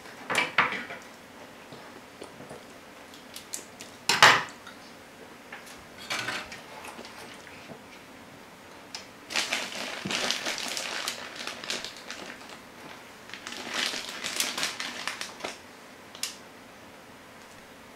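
Handling noise from wiring work on a plastic Lite Brite frame: hookup wire and a soldering tool knocking and clattering, with a sharp knock about four seconds in and two longer stretches of rustling and scraping later on.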